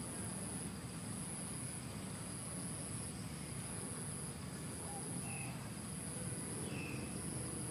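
High-pitched insect trill repeating in phrases about a second long with brief gaps, over a steady low outdoor hiss. Two faint short chirps come about five and seven seconds in.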